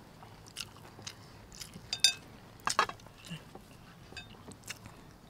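Close-up eating sounds: chewing and mouth smacks, with light clinks of utensils against dishes. One ringing clink comes about two seconds in.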